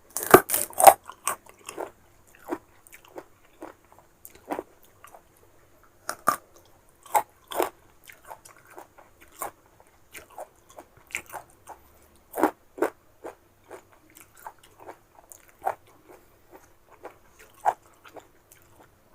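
Close-miked biting and chewing of crisp unripe green mango: a cluster of loud crunches right at the start as a bite is taken, then irregular crunchy chewing with a few louder crunches.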